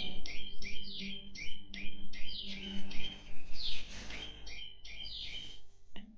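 Birds chirping in a rapid series of short, loud, sweeping chirps, about three or four a second, over background music with guitar.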